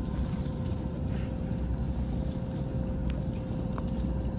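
Wind rumbling on the microphone, with light rustling and a few small clicks as a mesh net full of waterweed is handled on dry grass. A faint steady hum runs underneath.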